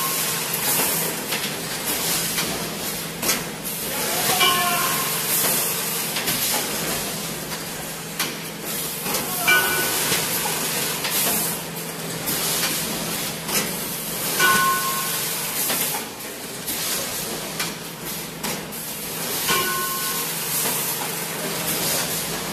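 Automatic urea bagging machine running: a steady mechanical hum with repeated pneumatic hisses and clacks as the clamps and frames handle the 50 kg bags. A short high tonal sound recurs about every five seconds with the machine's cycle.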